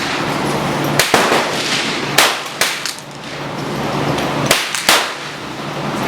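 Gunfire: about half a dozen sharp shots at irregular intervals, some in quick pairs, each followed by a short echo.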